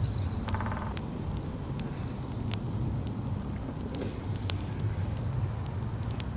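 Outdoor woodland ambience: a steady low rumble with scattered sharp clicks and snaps and a few short high chirps.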